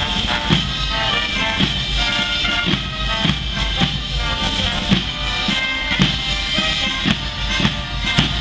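Military band playing a march, brass holding notes over a steady drum beat of about two strokes a second.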